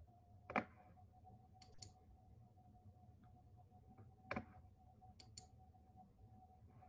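Near silence with a faint steady hum and a few soft clicks; the two clearest come about half a second and four and a half seconds in.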